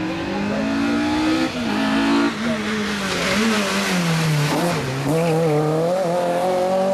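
VW Golf Mk2 rally car passing at speed, its engine revving hard. The engine note falls as it goes by, then climbs again as it accelerates away through the gears.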